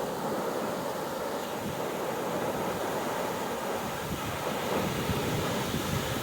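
Ocean surf breaking and washing ashore in a steady rush, with wind buffeting the microphone.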